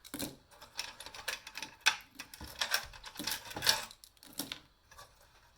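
Irregular clicks and clatter of small hard parts, steel and circuit-board pieces from a dismantled audio guide docking station, being picked up, turned over and set down.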